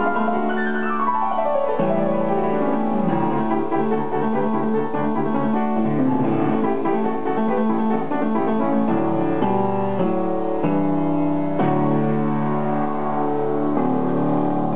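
Upright piano played solo: a fast descending run about a second in, then busy chords and melody, ending on a chord that is held and left ringing as the hands come off the keys.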